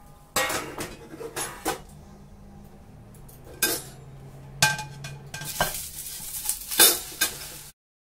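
Stainless-steel pan and plate clanking and scraping against each other as a rice cake is flipped onto the plate and slid back into the pan: a string of sharp metal knocks, the loudest near the end.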